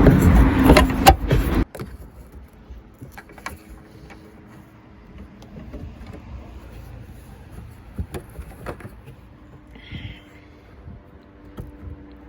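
Clicks and rattles of a plastic liftgate trim panel being pried off its clips, loud for the first second and a half and then cut off suddenly, followed by a few faint scattered clicks of handling.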